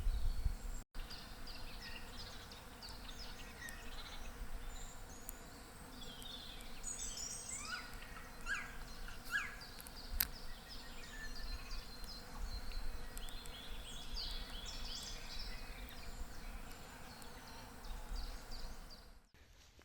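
Spring woodland birdsong: many small birds chirping and trilling at once, in quick, overlapping high-pitched phrases.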